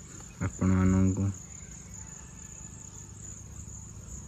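Steady high-pitched chirring of insects, with a man's voice sounding briefly about half a second in.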